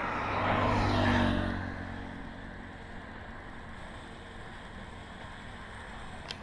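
A motor vehicle passing on the road, its engine and tyre noise swelling to a peak about a second in and fading away by two seconds. After that comes a faint steady background.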